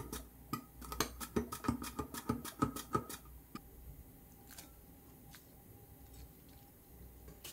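Cucumber being sliced on a handheld stainless steel mandoline slicer: a quick run of crisp slicing strokes, about four a second, that stops about three seconds in. After that only a few faint taps remain.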